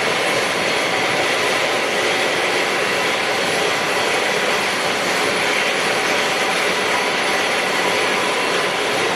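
Steady, unchanging machine noise from a CNC machining workshop, with a few faint steady tones in it and no separate knocks or starts.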